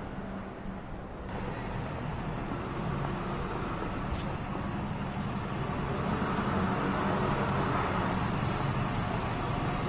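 City street traffic dominated by buses: the engines of a double-decker and a single-decker bus running close by, a steady hum that grows a little louder from about six seconds in.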